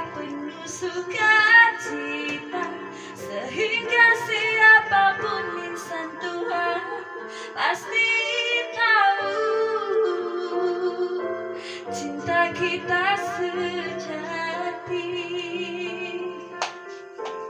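A woman singing a slow melodic song into a handheld microphone, holding notes with vibrato, over a sustained piano-keyboard backing.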